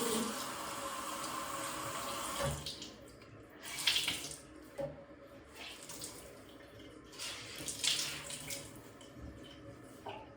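Running water: a steady run for about the first two and a half seconds, then quieter, with short bursts of water sound twice more.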